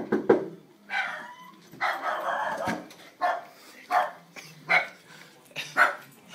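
Small dog barking in a string of about six separate barks, one roughly every second.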